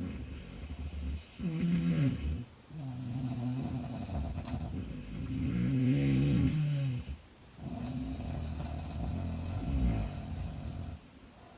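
A girl snoring in her sleep: a steady run of pitched, rattling snores, one after another with short breaks between breaths.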